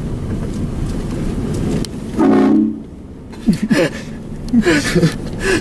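A short blast of a vehicle-mounted train air horn, a loud chord lasting about half a second, sounding about two seconds in over the steady hum of the vehicle. About a second later, voices cry out in several loud bursts with a sliding pitch.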